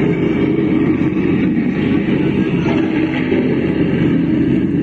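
Mini sound system's loudspeakers playing a loud, steady, bass-heavy noise signal with little treble, as used for an SPL (sound pressure level) test.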